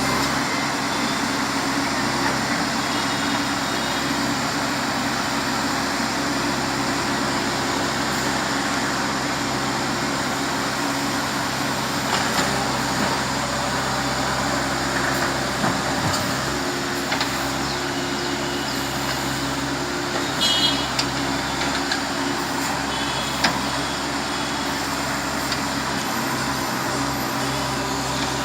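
A backhoe loader's diesel engine running steadily. A few brief high-pitched tones come through about three seconds in and again about twenty seconds in.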